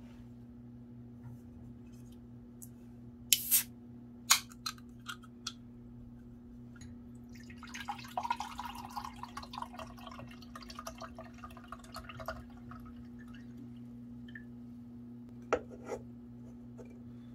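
An aluminium drink can's pull-tab cracking open with two sharp clicks, followed by a few lighter clicks; then canned café latte pouring into a glass tumbler for about five seconds, and two knocks as the can is set down, all over a steady low hum.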